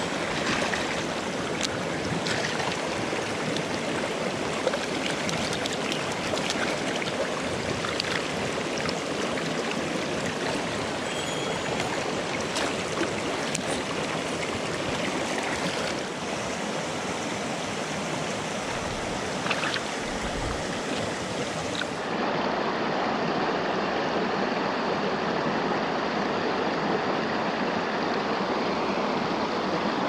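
Mountain stream water rushing steadily over rocks, with a few faint ticks scattered through it. About two-thirds of the way through the rushing changes character, losing its highest hiss.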